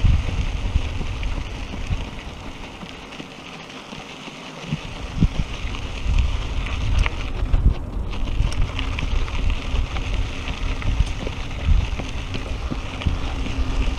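Bicycle tyres rolling over a dirt and gravel trail, with wind rumbling on the microphone. The wind rumble drops away for a second or so a few seconds in.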